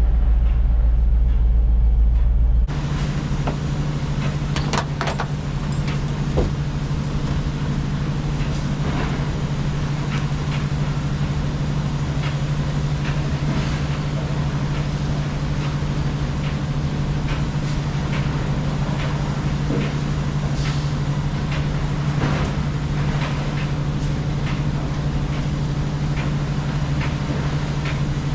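A vehicle's engine running steadily. About two and a half seconds in, the sound changes abruptly from a deep low hum to a higher, steady drone with scattered knocks and rattles.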